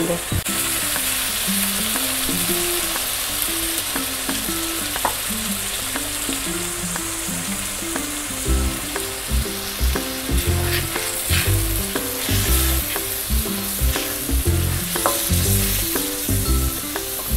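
Minced mutton and peas sizzling steadily in oil and a little water in a karahi, with a wooden spatula stirring and clicking against the pan near the end. Soft background music runs underneath, with a bass beat coming in about halfway.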